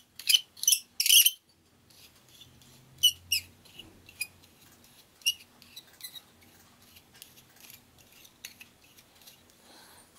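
Clear plastic salt grinder being handled: three loud, quick rattling clicks in the first second and a half, then scattered lighter clicks and taps of its hard plastic and metal parts.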